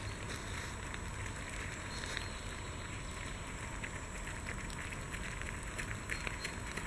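Steady outdoor hiss, with faint footfalls of runners on a dirt forest track starting to come through near the end as they approach.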